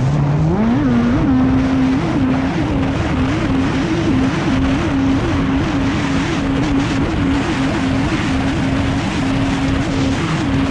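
Modified Kawasaki SX-R 160 four-stroke engine of a stand-up racing jet ski running hard. Its pitch dips low while rounding a buoy at the start, climbs back, then holds high and jumps up briefly every half second or so. A constant rush of spray and wind runs under it.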